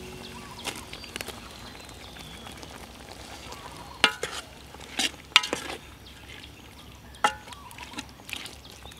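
A metal ladle stirring soup in a large aluminium pot, clinking and scraping against the pot several times, loudest about four and five seconds in, over a steady low hiss from the cooking pot.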